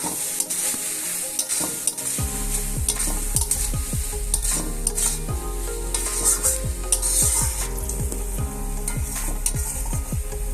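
A spatula repeatedly stirring and scraping leafy greens, potatoes and beans in a pan while the oil sizzles.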